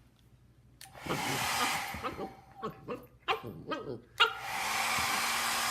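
Hair dryer blowing in two bursts, starting about a second in and again past the middle, with a husky barking at it between and over the bursts.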